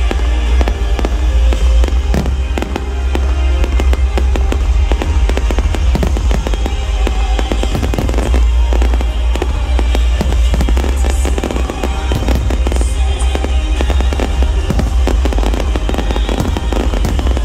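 Fireworks display: shells bursting and crackling in quick, dense succession over loud music with heavy bass.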